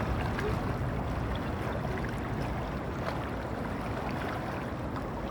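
Small river waves washing and lapping in a steady, even rush of water.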